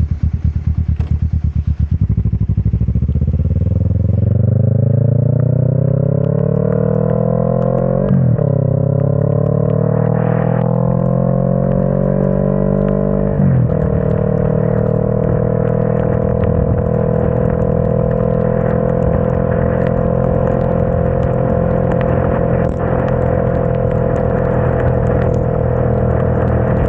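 Motorcycle engine idling, then pulling away hard, rising in pitch through the gears with two sharp drops at the upshifts about eight and thirteen seconds in, then cruising at a steady pitch. Tyre hiss from the wet road runs underneath.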